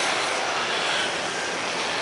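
Propeller aircraft on its landing approach: steady engine and propeller noise heard as a loud rushing hiss with a faint drone.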